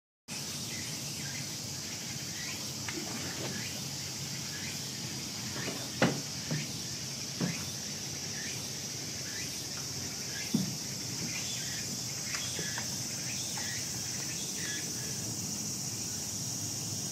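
Steady high-pitched insect chorus, with a few scattered short knocks, the loudest about six seconds in.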